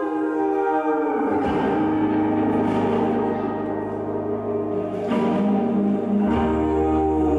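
Slow instrumental music of long held notes; a deep bass note comes in about a second in and drops lower near the end.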